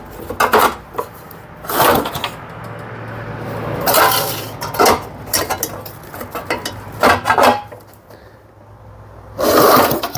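Recoil starter on a 3.5 hp Briggs & Stratton mower engine pulled about six times in quick, uneven succession, spinning the engine over without it firing: the engine has no spark.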